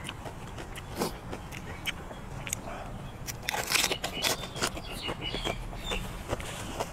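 Close-miked wet mouth sounds of eating a blanched baby squid dipped in chilli sauce: a loud bite about three and a half seconds in, then chewing with soft wet clicks.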